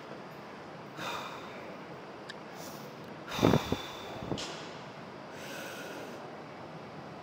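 Forceful breathing of a lifter straining through leg press reps: a sharp exhale about a second in, a loud voiced exhale falling in pitch around the middle, and a softer breath near the end.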